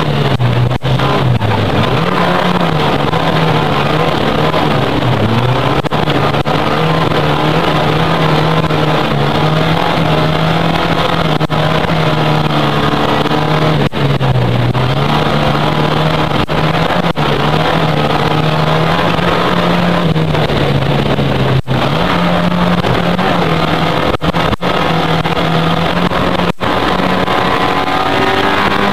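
Autocross car's engine running hard, heard from inside the cabin; its note drops and climbs back again several times as the car laps the dirt track.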